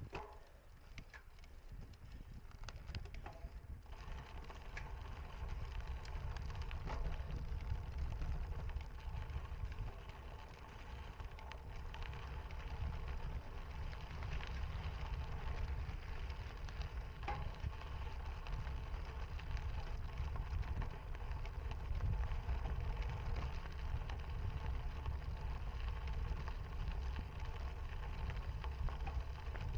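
Cyclocross bike being ridden over rough ground: a steady low rumble of tyres and wind on the microphone, with occasional clicks and rattles from the bike.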